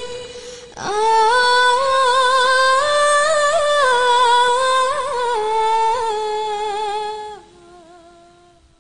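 A single high voice singing a slow, wordless, unaccompanied melody. After a short breath near the start, the phrase climbs, wavers through ornamented held notes, then settles onto a lower note that fades away near the end.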